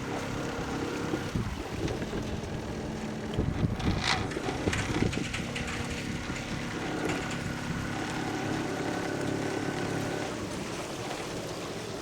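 Sailing yacht under way: wind on the microphone and water noise over a steady engine hum, with a few short knocks or splashes about four seconds in.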